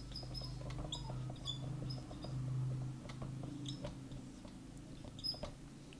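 Faint squeaks and scratches of a marker being written across a whiteboard, with short high squeaks scattered through, over a low steady hum that fades about three and a half seconds in.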